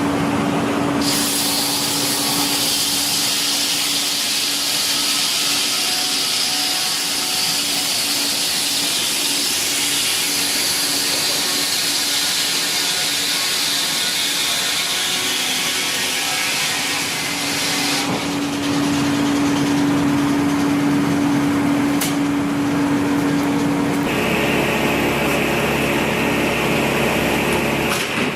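Power machinery running steadily, a motor hum under a strong hiss, with the sound shifting abruptly three times.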